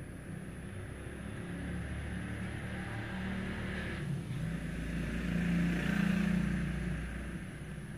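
A motor vehicle passing close by, its engine noise swelling to a peak about six seconds in and then fading.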